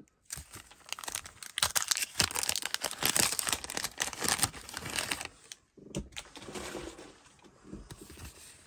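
Paper wrapper of a 1989 Donruss baseball card wax pack being torn open and crinkled by hand, a dense crackling for about five seconds, then softer rustling of the wrapper and cards.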